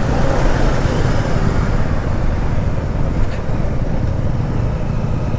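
Motorcycle riding along at a steady pace, its engine running evenly under the rush of wind and road noise.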